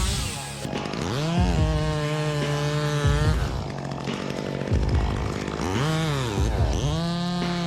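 Two-stroke chainsaw revving: the engine climbs to a high pitch about a second in and holds it for about two seconds, drops back, then revs up briefly twice more.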